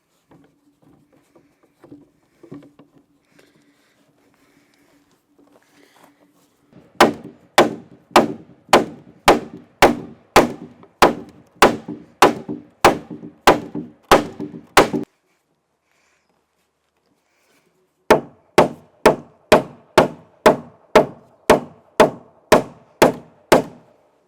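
Steady hammering on timber, about two sharp ringing blows a second, in two runs with a pause of a few seconds between them.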